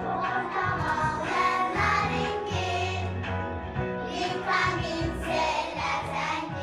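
Children singing together as a group, with instrumental accompaniment and a bass line that moves between notes.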